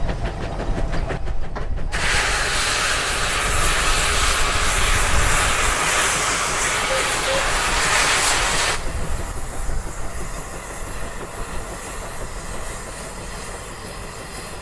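Case 150 steam traction engine working under plowing load with a steady low rumble. About two seconds in, a loud hiss of steam starts, holds for some seven seconds, and cuts off suddenly.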